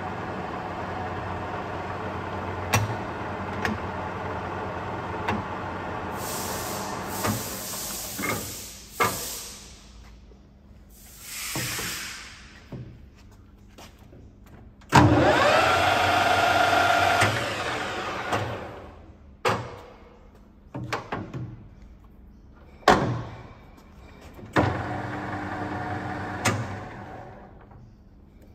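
Harrison M300 centre lathe running under its 2.2 kW motor with a steady gear hum, then stopping; about halfway through it starts up again suddenly with a short rising whine that settles and fades. Sharp clunks and clicks of its control levers and speed-change knobs being shifted come throughout.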